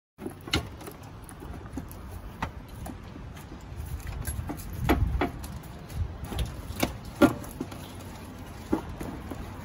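Irregular clicks, knocks and light scrapes of a 2004 Dodge Ram 1500's A/C condenser and its plastic brackets being worked loose and lifted out by hand. The sharpest knock comes a little past the middle.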